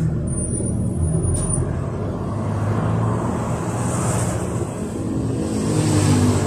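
Cabin noise of a moving Yutong ZK6890HGQ city bus: the Yuchai YC4G200-50 engine and tyre and road noise running steadily, heard from a passenger seat. A brief thin high whine sounds about a second in, and the engine note rises near the end.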